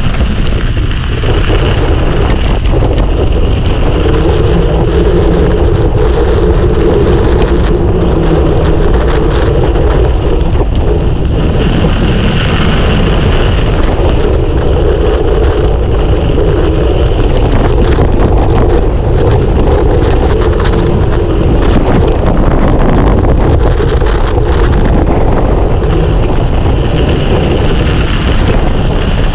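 Loud, steady wind rushing over the microphone of a mountain bike speeding down a trail, mixed with the rumble of its studded (spiked) tyres rolling over the ground.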